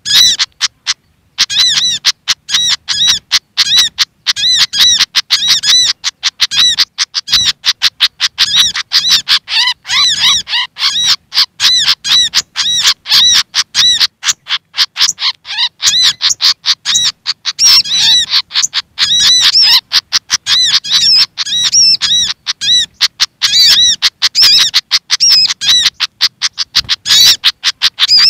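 Bird-lure recording of agitated, rapid chattering calls of the Malaysian pied fantail mixed with the ruby-cheeked sunbird. The short, high, arched notes repeat several times a second, almost without pause.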